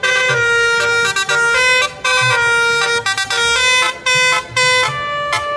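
Telolet bus horn playing its multi-note tune: a run of held horn notes sounding several pitches at once, changing pitch in steps, with short breaks every half second to a second.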